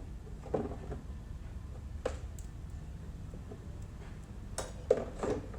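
A few light clicks and knocks of metal engine parts and tools being handled during a rotary engine teardown: one about half a second in, one near two seconds, and a quick cluster near the end, over a low steady hum.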